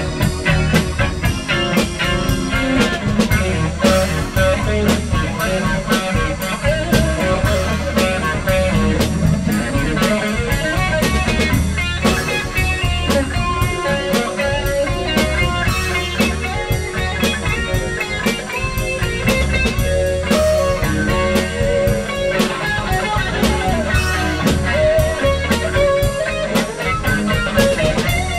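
Live blues-rock band playing an instrumental passage: electric guitar over a steady drum-kit beat.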